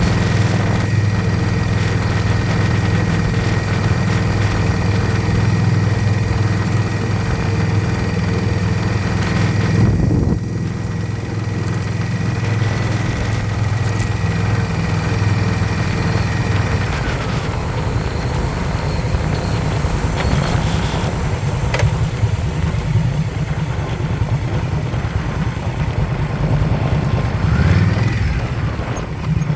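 Motorcycle engine running at idle: steady at first, dipping briefly about ten seconds in, then less even from about halfway, with a short rise in pitch near the end. The owner finds the sound it makes odd.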